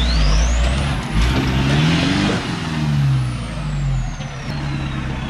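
Four-wheel-drive engine revving up under load and easing back off, peaking about two seconds in, over a deep steady rumble, as the vehicle crawls through a deep rut.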